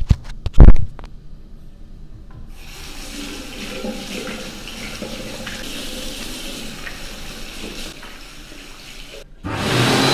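Washbasin tap running into the sink while hands are washed, after a sharp knock under a second in. Near the end the water stops and a much louder electric hand dryer starts up with a steady blowing noise.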